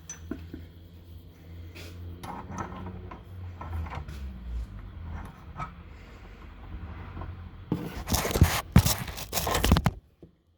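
Scraping and rubbing handling noises with scattered clicks over a low steady hum, then a loud stretch of scraping near the end that cuts off suddenly.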